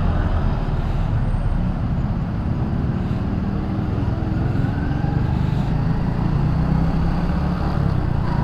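Honda Revo FI's small single-cylinder four-stroke engine running steadily while riding, with road noise and other traffic around.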